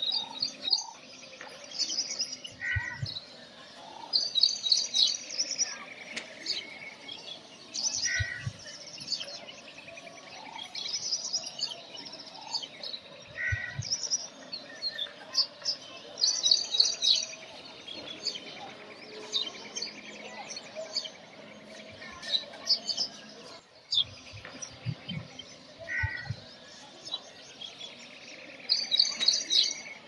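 Small songbirds chirping: quick series of bright, high chirps repeated every few seconds, with short lower notes between them. A few soft low thumps come and go.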